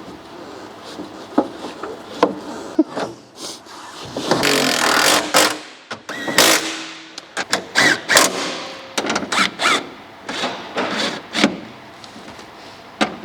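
Irregular clicks, knocks and short scraping rattles of metal parts and hand tools being worked inside a car door while a window regulator motor and its bracket are refitted.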